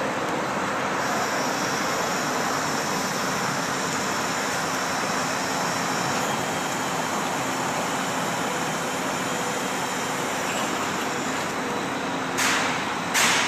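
Drill press running steadily while drilling holes, with a faint high whine over its hum. Near the end come two short, loud hisses.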